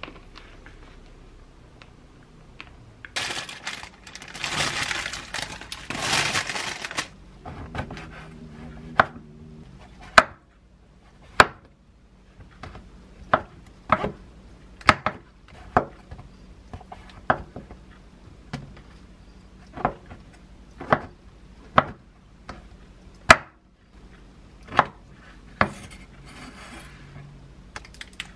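A chef's knife slicing king oyster mushrooms into bite-size pieces on a wooden cutting board: single cuts, each ending in a sharp knock on the board, about one a second. Before the cutting starts there is about four seconds of hissing noise.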